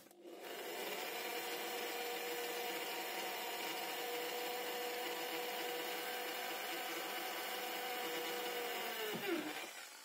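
Corded electric drill running steadily as it bores a small hole through a metal bolt just under its head. Near the end the motor is released and spins down with a falling whine.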